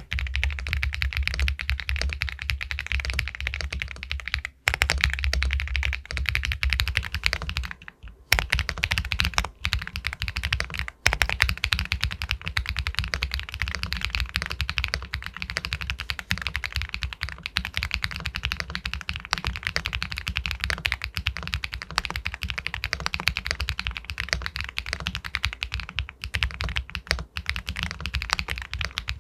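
Fast, continuous typing on an Epomaker Galaxy 80 Pro full-aluminium mechanical keyboard with White Jade linear switches: dense keystrokes with a pebble-like clack, broken by a few brief pauses in the first eleven seconds.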